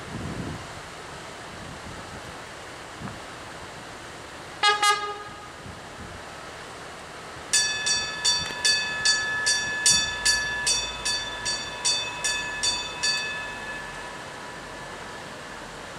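A train horn gives two quick short toots, and a few seconds later a bell rings about a dozen times, a little over two strikes a second, for about six seconds.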